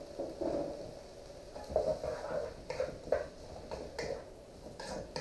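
Wooden spoon stirring vegetables in a wok: a run of irregular light knocks and scrapes against the pan.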